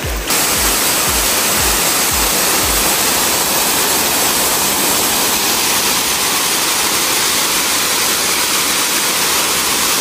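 Waterfall: a steady rush of falling water that cuts in and cuts out abruptly. A faint bass beat of background music fades out in the first few seconds.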